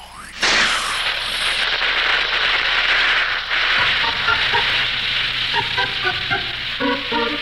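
Cartoon sound effect of a fire hissing and crackling steadily, starting right after a quick falling swoop. From about four seconds in, short separate music notes play over it.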